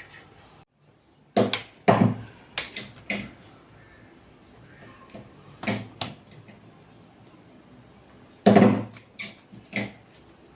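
Laptop parts being handled and fitted back during reassembly: a series of sharp plastic clicks and knocks. Several come close together a second or two in, and the loudest comes about eight and a half seconds in.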